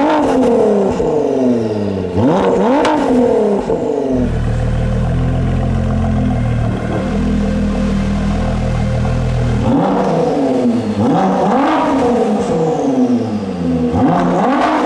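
Ford GT's twin-turbo V6 through its QuickSilver Inconel exhaust, revved in a series of quick throttle blips, each rising sharply and falling back. About four seconds in it settles to a steady low idle for roughly six seconds, then is blipped several more times.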